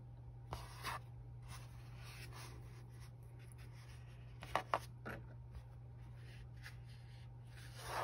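Fabric rustling and scratching softly as it is handled and pinned along a side seam, with a few brief clicks, over a low steady hum.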